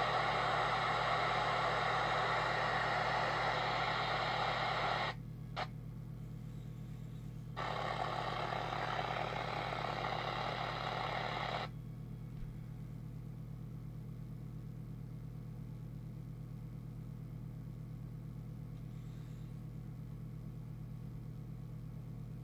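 TTI TCB-555 CB radio's speaker giving out hiss of receiver noise and interference with the squelch open while scanning. The hiss runs for about five seconds, stops, then comes back for about four seconds before the radio goes quiet. A steady low hum sits underneath throughout.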